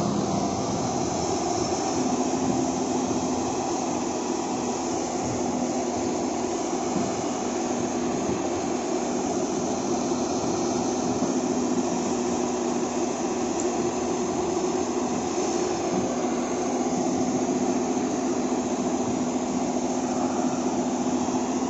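Diesel engines of heavy earthmoving machinery, an excavator and a dump truck, running steadily with an even hum while the excavator loads soil.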